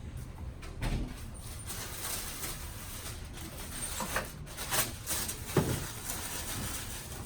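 Soft rustling with a few brief knocks and shuffles as a patient shifts and gets up off a chiropractic treatment table.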